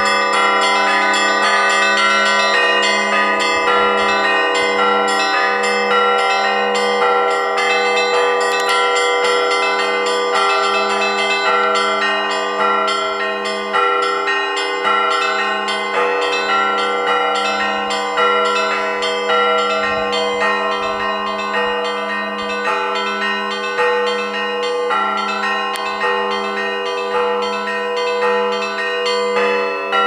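Russian Orthodox church bells rung by hand with ropes from a small wooden belfry: the smaller bells are struck rapidly in a repeating pattern over regular strokes of a larger, deeper bell, with the tones ringing on into one another.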